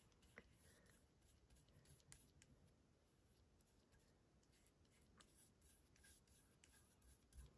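Near silence, with faint, scattered soft ticks and scratches of a paintbrush working thick acrylic paint onto watercolor paper.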